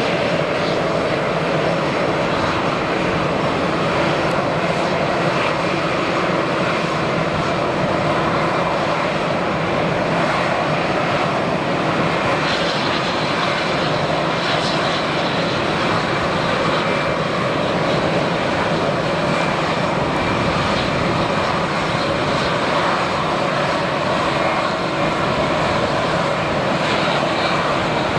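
Airbus A319's twin CFM56 jet engines during landing, from final approach to rollout on the runway: a loud, steady rush of jet noise with a few faint steady tones in it.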